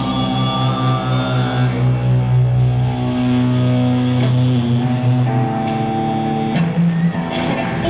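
Live rock band playing amplified electric guitar and bass in long held chords, shifting to a new chord about five seconds in and again near the end, with a few drum hits.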